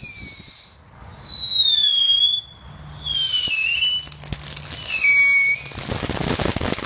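Whistling firework going off: four shrill whistles, each falling in pitch, followed near the end by a crackle of rapid small pops.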